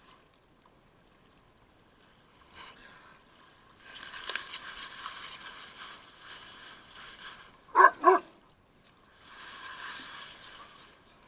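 Dog barking twice in quick succession about eight seconds in, between stretches of steady hiss.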